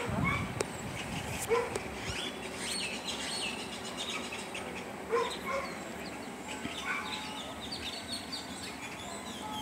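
A dog giving a few short single barks spaced seconds apart, with small birds chirping throughout.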